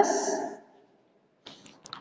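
A woman's voice ending a word with a short hiss that fades within half a second, then near silence broken by a few faint clicks near the end.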